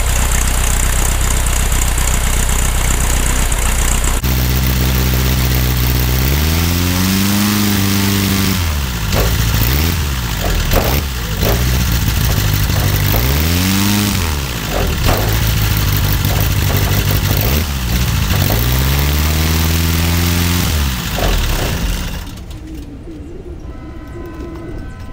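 Beechcraft Musketeer's four-cylinder piston aircraft engine running. Its speed rises and falls repeatedly as the throttle is worked, and it is reluctant to accelerate, which the mechanic suspects is a clogged fuel pump or too little fuel in the carburetor float bowl. It shuts down about 22 seconds in.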